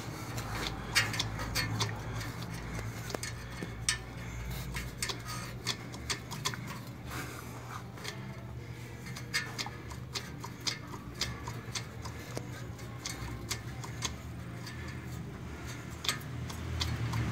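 Driveshaft center bearing and rubber flex coupling rattling, with irregular sharp clicks and knocks over a steady low hum. The owner takes the bearing and coupling for blown, and the clicking comes with the heavy vibration in the driveline.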